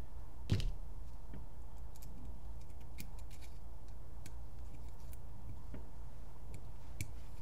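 Small scattered metallic clicks and ticks of a hex key turning a screw into a Dye DAM paintball marker's body, with one louder click about half a second in, over a low steady hum.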